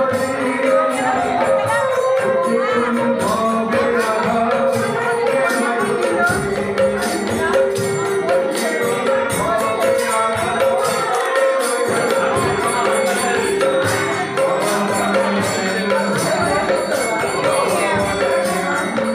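Devotional music with jingling, tambourine-like percussion keeping a steady rhythm over pitched melody.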